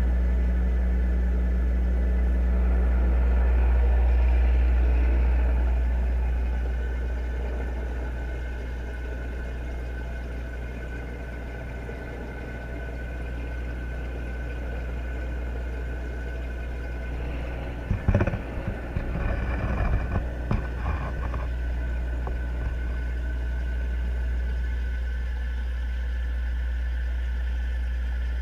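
Steady low machine hum with a few fainter steady higher tones, typical of aquarium pumps heard through the water. About 18 seconds in comes a flurry of irregular knocks and thumps lasting about three seconds.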